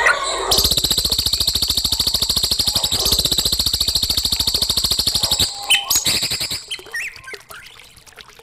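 Songbird calling with a long, fast buzzing trill of rapid even pulses lasting about five seconds, followed by a few short, separate chirps.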